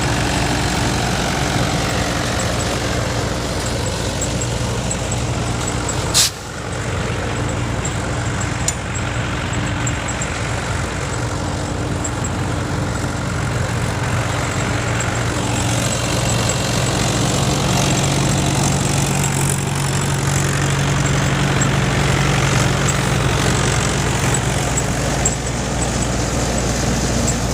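Multicrop thresher running steadily under engine power, with a low engine hum beneath the machine's rattle. There is one sharp knock about six seconds in.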